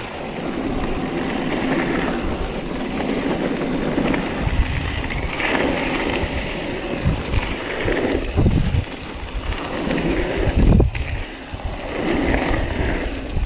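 Mountain bike running fast downhill on a loose gravel trail: a continuous rush of tyre noise on gravel and wind over the microphone, with heavier low buffeting in the middle.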